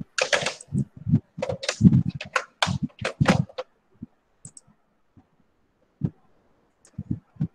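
A man's voice in short broken bursts, mixed with handling noise as a desk phone handset is put down, then a few faint scattered clicks.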